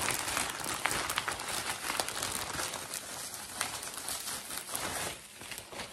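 Plastic packaging and bubble wrap crinkling and crackling as a parcel is unwrapped by hand, a dense run of small irregular crackles that eases off about five seconds in.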